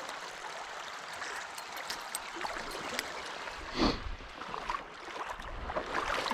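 Small trout stream running steadily, a hiss of flowing water with faint clicks, and a brief louder burst of noise about four seconds in.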